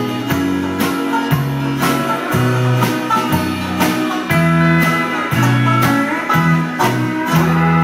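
Live country string band playing an instrumental passage: banjo, acoustic and electric guitars over a bouncing bass line and a steady drum beat. About seven and a half seconds in the band lands on a sustained final chord.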